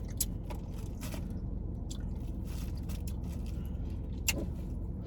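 Close-up eating sounds from a seafood meal: chewing, lip smacks and small clicks of crab and shrimp shells, with a sharper click about four seconds in. A steady low hum runs underneath.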